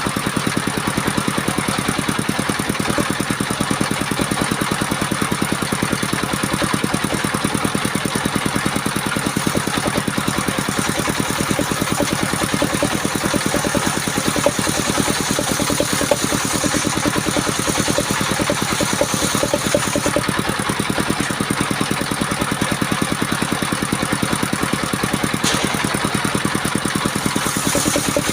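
Engine of a homemade portable circular-saw sawmill running steadily, with a rapid, even beat of firing pulses.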